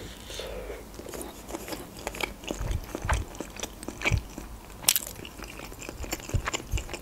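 A mouthful of khachapuri cheese bread being chewed close to the microphone: soft wet mouth sounds with scattered crunches of the baked crust, the sharpest one about five seconds in.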